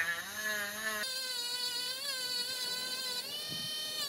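Parkside PFBS 12 C5 cordless rotary tool running with a steady high whine, spinning a felt disc loaded with abrasive paste against an ebonite pipe stem to polish off the yellowed sulphur layer. Its pitch wavers slightly twice.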